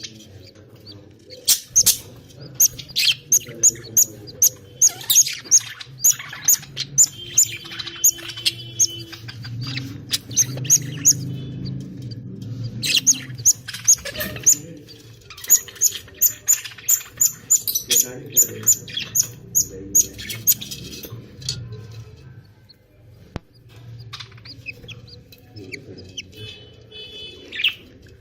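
Budgies chirping: short, sharp chirps in quick runs, about two a second. There is a brief lull about halfway through, and the chirps grow sparser near the end.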